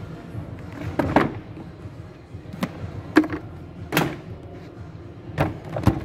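Hard plastic knocks and clacks from a Henry vacuum cleaner's body and fittings being handled: about seven sharp knocks at irregular intervals.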